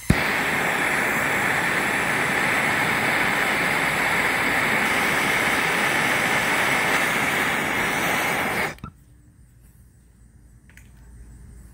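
Handheld gas torch lit with a click, its flame hissing steadily on a rusted exhaust bolt, being heated to free it, then shut off suddenly about eight and a half seconds in.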